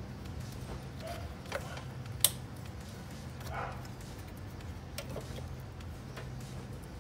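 Scattered light clicks and taps of hands handling plastic parts and hoses in a car's engine bay, with one sharper click a little over two seconds in and a short scrape midway, over a steady low hum.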